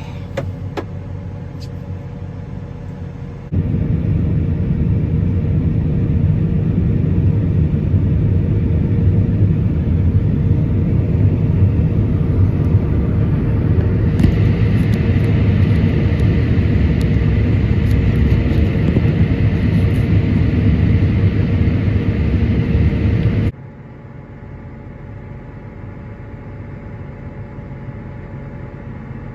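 Heavy farm machinery engine running steadily with a low rumble during harvest work. It gets abruptly louder a few seconds in and drops back abruptly near the end.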